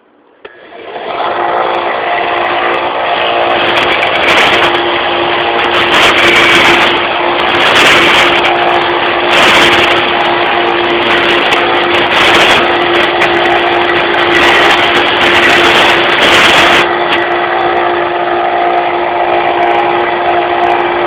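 Belt sander switched on and running steadily with a hum, while wood is pressed against the moving belt again and again, each contact a louder sanding rasp lasting a second or so, from a few seconds in until near the end.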